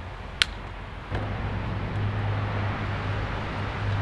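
A single sharp snip of shears cutting through a rubber gasket, then, about a second in, the steady low hum of a vehicle engine starts and runs on.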